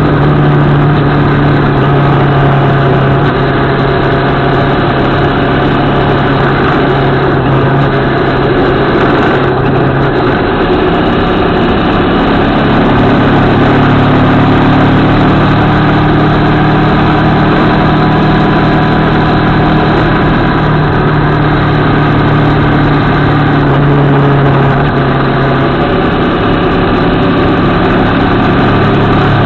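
CFMoto 650MT parallel-twin motorcycle engine running at road speed, heard from a camera mounted on the bike, under a steady rush of wind and road noise. The engine note dips twice, about a third of the way in and again near the end, then picks back up as the throttle changes through bends.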